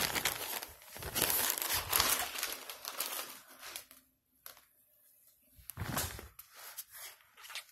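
Clear plastic poly bag crinkling as a jersey is handled and pulled out of it. The crinkling is dense for the first few seconds, then comes in a few short bursts.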